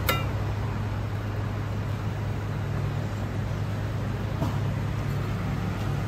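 A steady low mechanical hum with a rushing noise over it, and a short ringing metal clink right at the start, the ladle against the steel soup pot; a fainter clink comes about four and a half seconds in.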